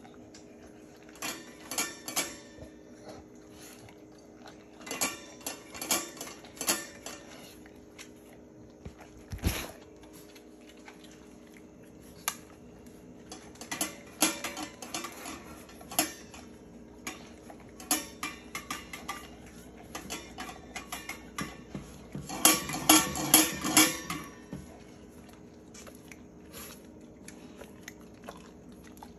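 A chocolate Labrador retriever eating from a stainless steel bowl in a metal stand: bursts of metallic clinking and rattling as its muzzle pushes the bowl around in the frame. The longest and loudest rattle comes about three-quarters of the way through, with a single dull thud about a third of the way in.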